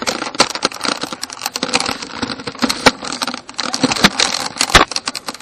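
Rapid, irregular clicking and knocking: handling rattle of a Nerf blaster with a camera mounted on it as it is carried and moved about. Two louder knocks stand out, about three and five seconds in.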